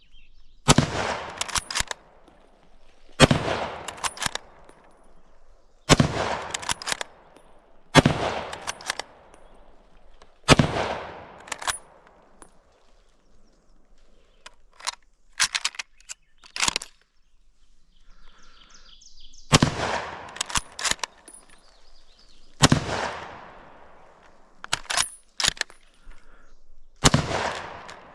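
M1903A3 Springfield bolt-action .30-06 rifle fired eight times. Five shots come about two to three seconds apart, each followed by metallic clicks of the bolt being worked. After a pause filled with a run of clicks, three more shots follow.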